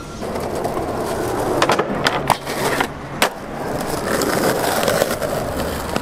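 Skateboard wheels rolling over rough concrete, with several sharp clacks of the board hitting the ground, the loudest about three seconds in.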